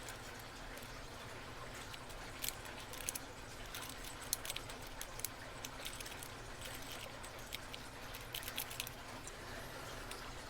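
Faint, irregular metallic clicks and ticks of a lock pick and tension wrench working the pin stack of a brass rim cylinder, over a low steady hum.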